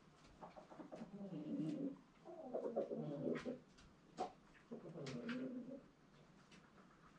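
Hen sitting on a straw nest making low calls in three bouts of about a second each, with faint scattered clicks between them.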